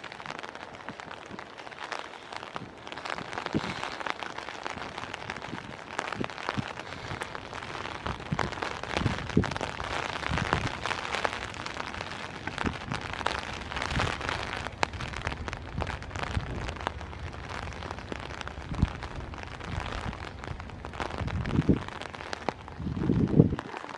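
Steady rain hiss with many sharp drops ticking on an umbrella over the microphone. A few heavier low thumps come near the end.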